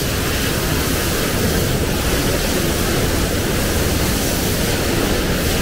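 Tea-factory machinery running: a steady, loud, even rush of noise with a low rumble underneath and no clear rhythm.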